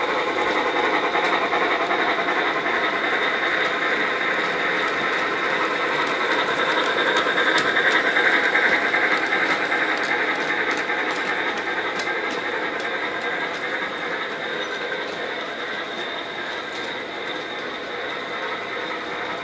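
Bachmann G-scale Thomas the Tank Engine model locomotive running on its track: a steady whir of the electric motor and gears, with the wheels rolling on the rails. It grows louder for a few seconds about eight seconds in, then eases off.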